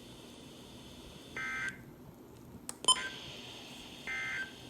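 Two short, buzzy Emergency Alert System digital data bursts, the end-of-message code that closes a warning, with a sharp click between them.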